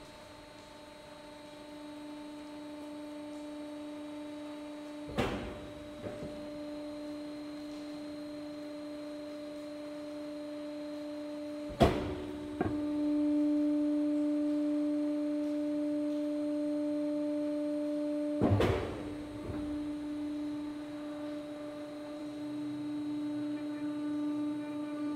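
Moving-floor drive of a One2Feed feed hopper running: a steady mechanical hum, with a sharp knock about every six and a half seconds. The hum grows louder after the second knock and drops back after the third.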